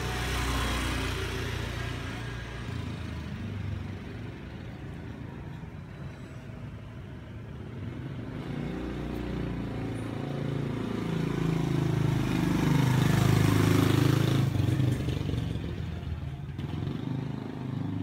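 Road traffic: motor vehicles passing. The loudest, with a low engine note, builds up about ten seconds in, peaks a few seconds later and fades away again.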